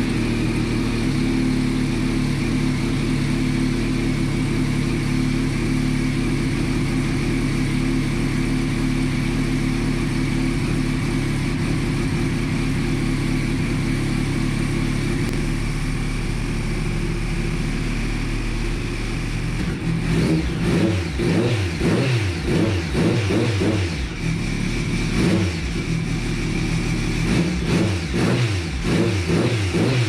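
Triumph race motorcycle's engine running steadily on its first start after assembly. From about two-thirds of the way in, the throttle is blipped over and over, the revs rising and falling in quick repeated bursts.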